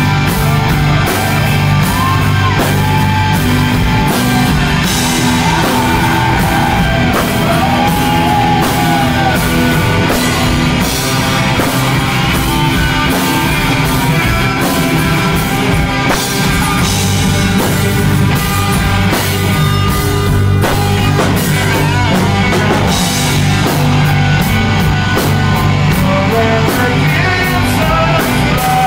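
Live rock band playing loud: distorted electric guitars over a drum kit with steady cymbals, a lead line bending and wavering in pitch through the first several seconds.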